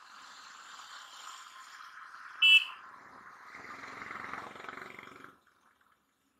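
Motorcycle riding in traffic: steady wind and road noise, a short loud vehicle horn toot about two and a half seconds in, then a low engine rumble that swells for about a second and a half. The sound cuts off abruptly a little after five seconds.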